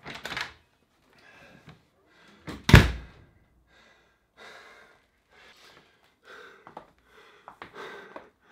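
A single heavy thump about three seconds in, with a man's hard, gasping breaths in short bursts around it as he recovers from an all-out sprint.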